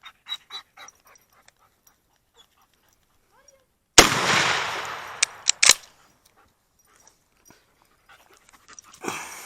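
A single 12-gauge shot from a GForce P3 14-inch firearm about four seconds in, echoing and dying away over about a second and a half, followed by three quick sharp clacks. A dog pants in the first second.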